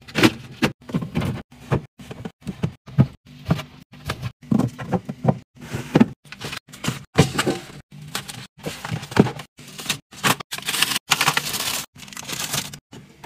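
Fridge restocking and cleaning sounds in quick cut snippets: items knocking and tapping as they are set in place, packaging rustling, each snippet stopping abruptly. A longer stretch of rustling, hissing noise comes near the end.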